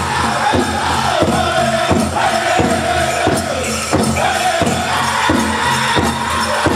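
Powwow drum group singing a men's chicken dance song, with high wavering voices in unison over a big drum struck in a steady beat of about three strikes every two seconds.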